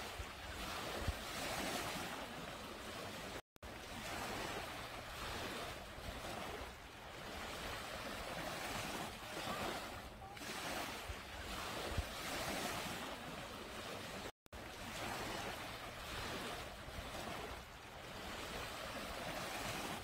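Small waves washing up a sandy beach and drawing back: a foamy hiss that swells and fades every couple of seconds. It drops out briefly to silence twice.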